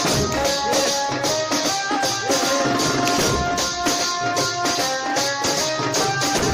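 Music: a melody of held notes over a quick, steady percussion beat.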